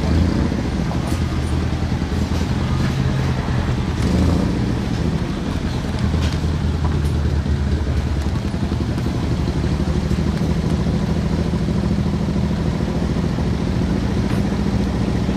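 Vehicle engine running steadily under way, its note shifting briefly about four seconds in, over a steady hiss.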